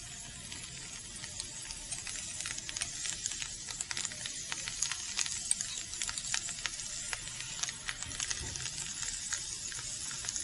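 Vegetables and cabbage leaves sizzling on a very hot sizzler plate: a steady hiss with rapid small crackles and pops, getting busier after the first couple of seconds.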